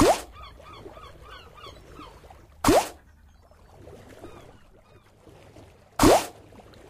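Online slot game sound effects: the last of a quick run of reel sounds right at the start, then two single short rising swooshes about three and a half seconds apart as the reels spin, over a faint chirping background ambience.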